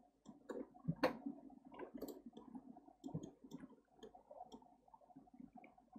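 Quiet, irregular clicks of a computer mouse and keyboard, a few a second, with the loudest about a second in.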